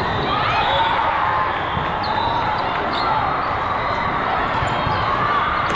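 Volleyball gym ambience: sneakers squeaking on the court floor and balls bouncing, over a steady wash of voices echoing in the hall.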